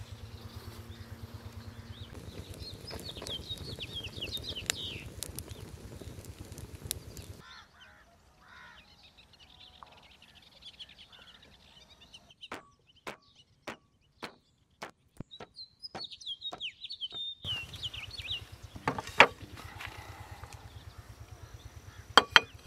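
Birds chirping, over a steady low hum for the first several seconds. In a quieter stretch in the middle come sharp, irregular crackles from a small twig fire, and near the end there are a couple of sharp clicks.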